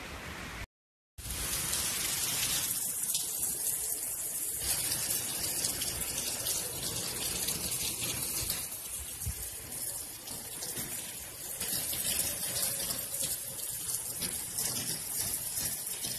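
Hurricane wind and heavy rain: a loud, steady rushing hiss that swells and eases, after a half-second dropout to silence near the start.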